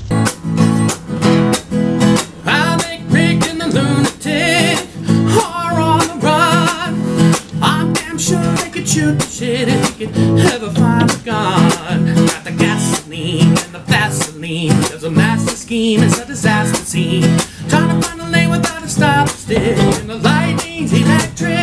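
Background music: a song on strummed guitar with an even, steady beat.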